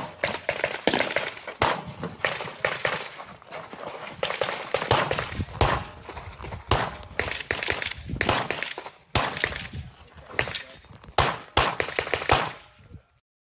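Rapid pistol fire from a CZ 75 SP-01 during a USPSA Carry Optics stage: strings of sharp shots, several a second, with short pauses between strings and echo after each shot. It cuts off abruptly near the end.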